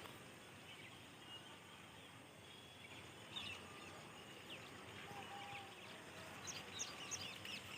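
Faint quiet outdoor ambience with small birds chirping: a few short high chirps about three seconds in and a quicker run of them near the end.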